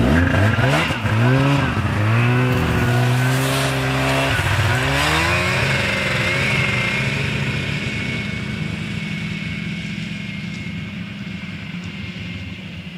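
Snowmobile engine revving up in several rising surges as it pulls away, then running steadily and slowly fading as it drives off into the distance.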